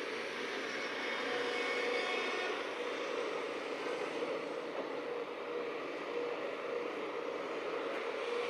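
Engine running with a steady drone, holding level throughout.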